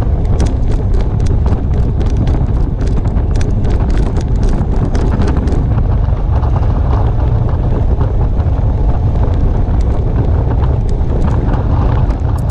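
Wind buffeting the microphone of a bicycle-mounted camera riding at about 41 km/h: a loud, steady low rumble, with faint ticks through the first half.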